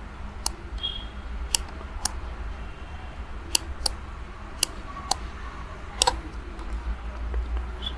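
About eight sharp, irregular clicks and taps from hand-writing figures on a digital whiteboard, over a steady low hum.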